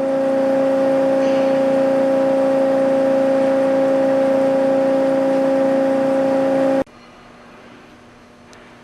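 Hyd Mech H-40 horizontal bandsaw running: a loud, steady hum with a few fixed tones over a noisy rush. It cuts off abruptly near seven seconds in, leaving only a faint low hum.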